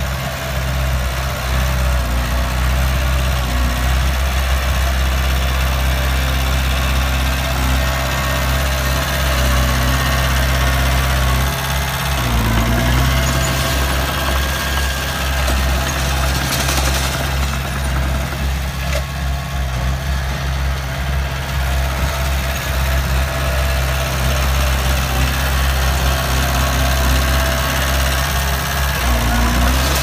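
Heavy diesel engines of earthmoving machinery running steadily in a deep, continuous rumble, with brief changes in the engine note about twelve seconds in and again near the end.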